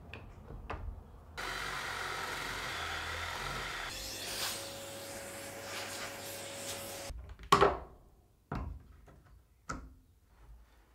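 A drill boring a 35 mm hinge-cup hole into a plywood cabinet door through a hinge-drilling jig, running steadily for about six seconds and stopping suddenly. It is followed by one sharp knock and a few light clicks as the euro hinge is handled and set in the hole.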